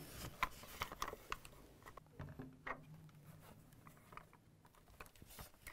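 Faint, scattered clicks and taps of a plastic AR-style air rifle being turned over and felt in the hands.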